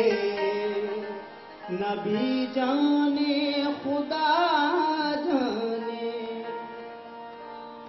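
Qawwali singing: a man's voice with sliding, ornamented phrases over a harmonium holding steady notes. After about five and a half seconds the voice stops and the harmonium goes on alone, a little quieter.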